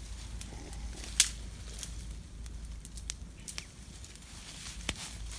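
Small wood fire crackling, with a few scattered sharp snaps, the loudest about a second in.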